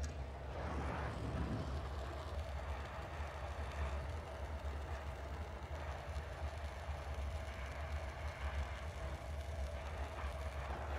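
Gas torch flames of a glassblowing lathe setup burning steadily with a hiss, over a constant low hum and a faint steady tone.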